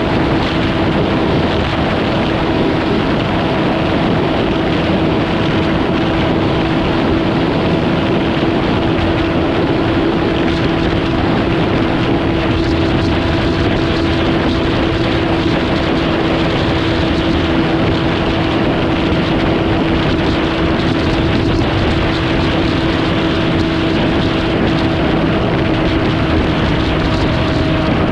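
A vehicle running steadily, its engine a constant hum that holds one pitch over an even rushing noise.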